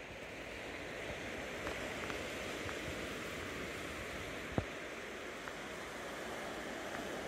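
Small waves washing steadily on a rocky shoreline, heard as an even hiss. A single sharp click sounds a little past halfway.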